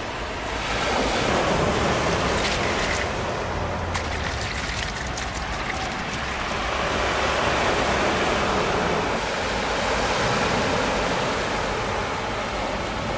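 Sea surf washing onto the shore: a steady rush that swells and eases in slow surges, with a fine crackle of washing water in the early middle.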